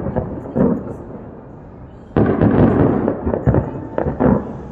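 Aerial fireworks going off: a few separate bangs in the first two seconds, then a sudden rapid cluster of cracking bangs a little over two seconds in, each followed by an echo.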